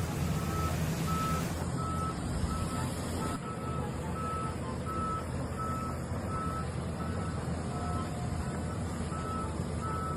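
Reversing alarm beeping steadily on one tone, about two beeps a second, over a low engine rumble.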